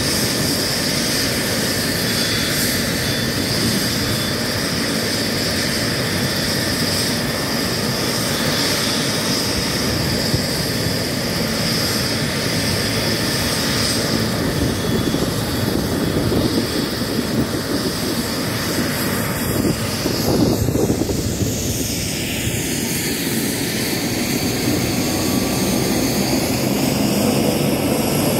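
Bell 429 helicopter running on the ground, turbine engines and main rotor turning: a steady high turbine whine over dense rotor noise. About two-thirds of the way through, the pitch of the whine shifts.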